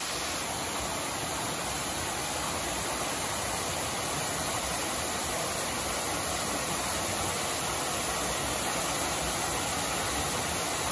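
Waterfall on a river: a steady, even rush of falling water.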